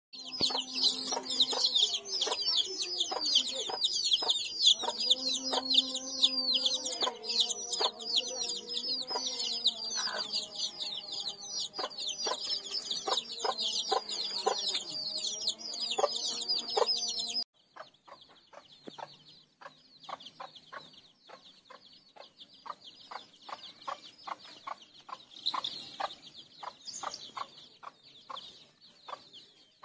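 A brood of chicks peeping: a dense stream of quick, high, falling cheeps, over a mother hen clucking in short, low notes. About two-thirds of the way through it cuts off suddenly, and fainter peeping and short clucks carry on more quietly.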